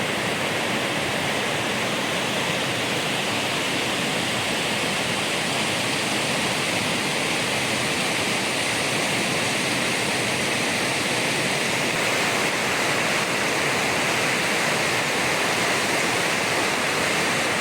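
Steady rushing water, an even hiss that neither rises nor falls, as of a mountain stream or waterfall.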